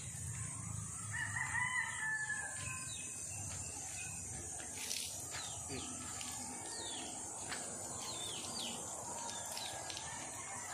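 A rooster crowing once, a long call about a second in, over scattered small bird chirps and a steady high insect drone.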